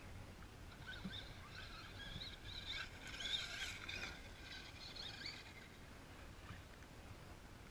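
Faint, distant whine of a Traxxas RC truck's electric motor rising and falling in pitch as it is driven over the dirt jumps, loudest in the middle and fading away in the last couple of seconds.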